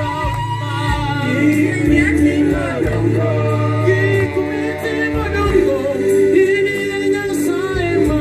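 Live Swahili gospel song: several men singing into microphones over steady bass notes from an electric keyboard, amplified through a PA system.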